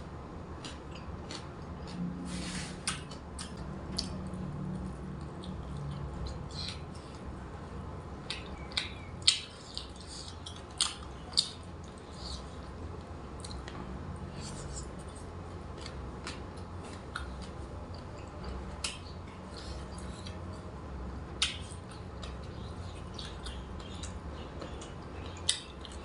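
A person chewing and eating, with irregular crisp crunches and wet mouth clicks and a few sharper crunches scattered through.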